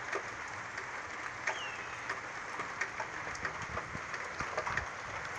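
Steady rain falling, with scattered drops hitting close by, and a hawk's short falling whistle about one and a half seconds in.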